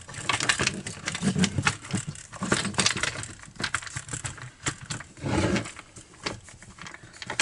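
Plastic top cover of a Partner P352 chainsaw being handled and pressed into place on the saw: a run of irregular plastic clicks, knocks and rattles, with a longer rubbing stretch about five seconds in.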